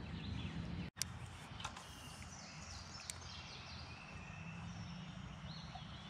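Quiet outdoor ambience: a low steady rumble with faint high bird chirps and a few light clicks. The sound cuts out for an instant about a second in.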